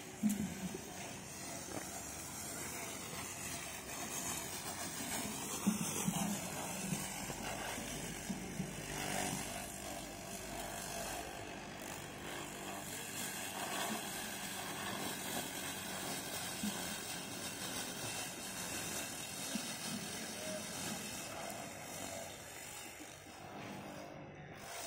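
A homemade lawn mower driven by an electric water-pump motor, running steadily as it cuts grass.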